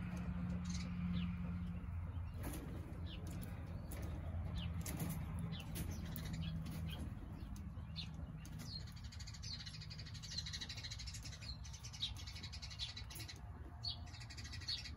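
Faint, short, high chirps of small birds scattered throughout, busier in the second half, over a low steady hum.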